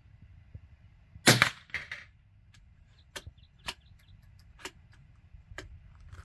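A single sharp shot from a CZ 457 Jaguar .22 LR bolt-action rifle about a second in, with a weaker report just after it. Several lighter clicks follow, spaced about a second apart.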